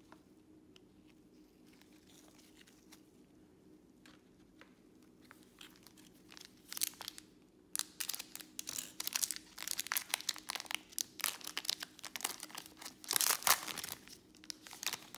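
Foil wrapper of a Panini Select baseball card pack being torn open and crinkled by gloved hands. There are only faint card-handling ticks at first. Dense crackling and tearing start about six seconds in, with the loudest tear near the end.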